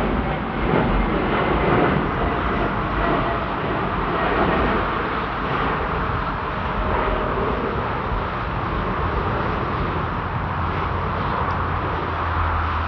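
Jet airliner engines running at high power during departure: a loud, steady noise with a faint whine and a low hum that comes in about halfway through.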